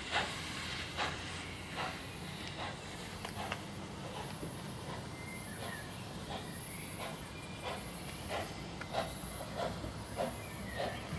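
NSW C36 class steam locomotive 3642 working slowly towards the listener, giving soft exhaust beats that are spaced out at first and come quicker towards the end, over a steady steam hiss. A high pulsing buzz, like insects, runs behind it.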